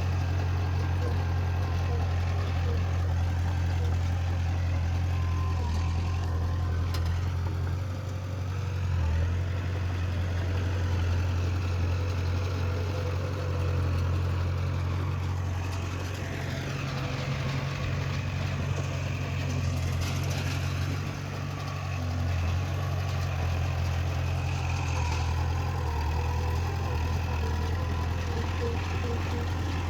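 Diesel engine of heavy earthmoving machinery running steadily with a deep hum, dipping slightly a few times.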